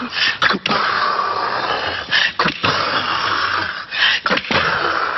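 Several people making thunder with their mouths: a long, loud, breathy hissing noise, broken several times by short sharp hits.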